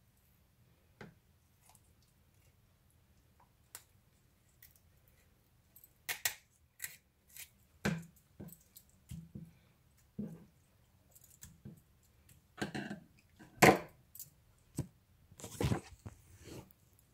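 Kitchen scissors snipping through raw chicken on a plastic cutting board: scattered snips and clicks, sparse for the first few seconds and coming thick and irregular from about six seconds in, with a few sharper knocks near the end.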